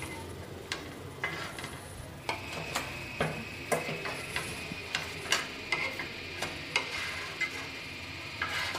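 Wooden spatula scraping and tapping on a non-stick tawa as cooked pancakes are slid off it, a dozen or so short irregular clicks, over a faint steady sizzle from about two seconds in.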